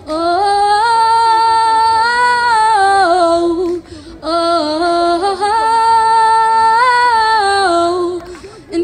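Female singer singing solo into a microphone: two long, drawn-out phrases with a short breath between them about four seconds in, each stepping down in pitch as it closes.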